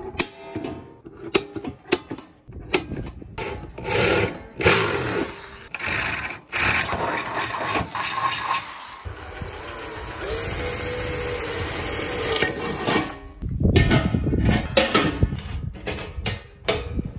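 A series of sharp clicks and taps as an automatic center punch marks a stainless steel food pan. Then an electric drill runs for several seconds, boring through the thin stainless steel. Near the end comes metal clattering and knocking as the parts are handled and fitted.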